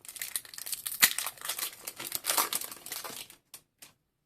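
Foil wrapper of a Pokémon TCG booster pack crinkling as it is handled and torn open, with one sharp snap about a second in. The crackling thins to a few clicks and stops just before the end.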